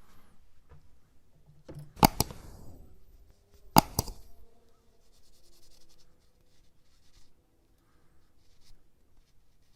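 Metal hand tools being handled: two sharp metallic double clicks, one about two seconds in and one just before four seconds, each with a short ringing tail, followed by faint rubbing.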